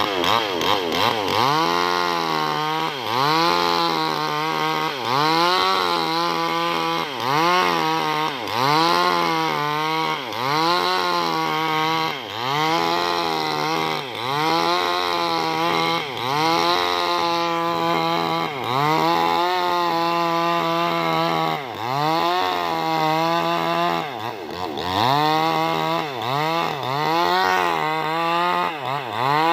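New West 588 two-stroke chainsaw cutting through a merapai log. Its engine pitch dips under load and recovers over and over, a little more than once a second.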